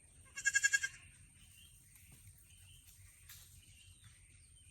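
A goat bleating once, a short, high, wavering call.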